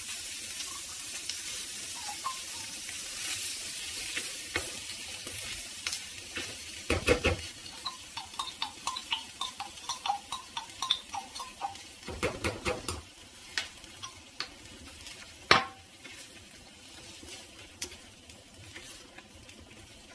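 Diced ham and onion sizzling in a frying pan as thick cream sauce is spooned in from a jar and stirred. A run of quick scrapes and taps of the spoon in the middle, with a few louder knocks, and the sizzle dies down once the sauce covers the pan.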